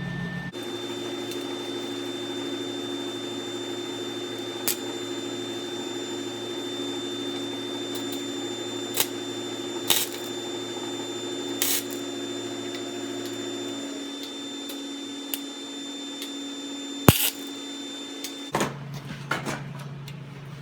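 Wire-feed welder running with a steady hum, broken by several short, sharp crackles of the arc as the wastegate flange is tack-welded onto the turbo's exhaust housing. The hum starts about half a second in and stops near the end.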